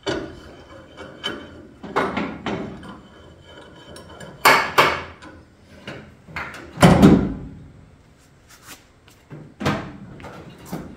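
Metal bar knocking and scraping against the car's steel tail panel as it is worked in through the taillight opening, in about five separate clunks; the loudest come about five and seven seconds in.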